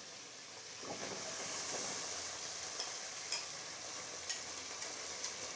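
Mutton pieces sizzling as they fry in hot oil in a stainless-steel karahi on high heat. The sizzle gets louder about a second in as more meat goes in, with a few light clinks of a steel ladle.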